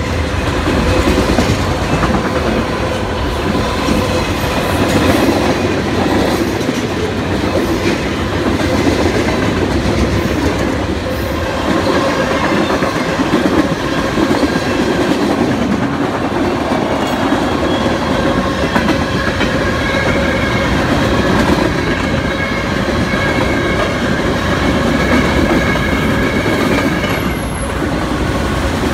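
Freight train cars rolling steadily past, a continuous rumble with wheels clacking over the rail joints.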